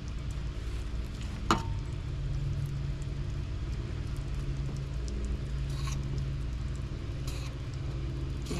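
Fillet knife cutting the bloodline out of a black drum fillet on a stainless steel table: faint soft slicing scrapes, with a single sharp tap about a second and a half in. A steady low rumble runs underneath.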